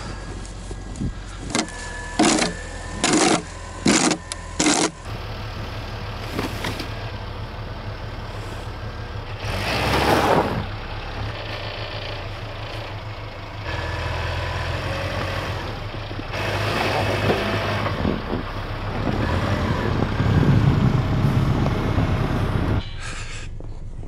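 A metal snow shovel scraping through packed snow in about six quick strokes. Then a stuck Subaru Forester's engine runs steadily for the rest of the time, getting louder in steps and loudest near the end.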